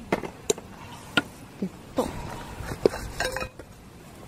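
Irregular light clinks and clicks of small metal cooking utensils being handled and knocked together, with a quick cluster of rattles a little past three seconds in.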